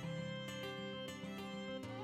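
Background music led by plucked acoustic guitar, with notes changing every half second or so.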